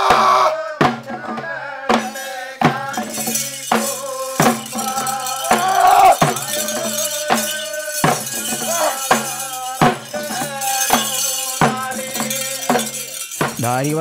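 Kerala folk ritual music: a drum struck at an even beat, about every 0.7 s, under a singing voice with a wavering melody. A continuous jingling of metal bells, like the dancers' bell-hung costumes, runs through it.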